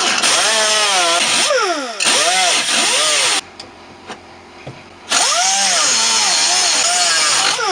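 An electric angle grinder working the sheet-steel floor of a car, a harsh gritty noise over a motor whine that repeatedly sags in pitch under load and picks back up. It runs in two long bursts with a gap of about two seconds in between.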